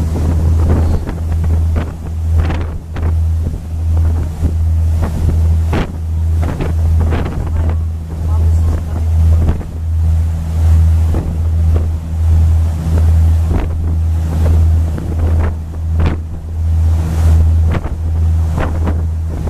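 River cruise boat's engine running with a steady low drone, its wake churning behind, and wind buffeting the microphone in gusts.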